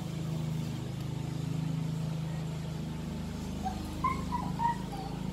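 A motor running steadily in the background, a low even hum, with a few short high chirps about four seconds in.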